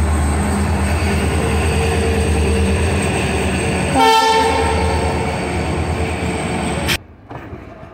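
Indian Railways locomotive running with a steady low rumble and a thin high whine, and a short horn blast about four seconds in. The sound cuts off suddenly near the end.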